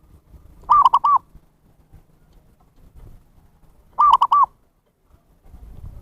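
Zebra dove (perkutut) calling: two short phrases, each of three quick cooing notes, about three seconds apart.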